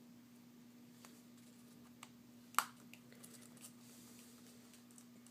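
Faint, sparse clicks of a small precision screwdriver working the washer-backed frame screws of an iPhone 4, with one sharper click about two and a half seconds in.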